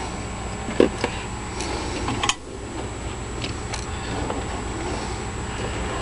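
Steady low hum of a small running fan, with a light knock about a second in and another just past two seconds.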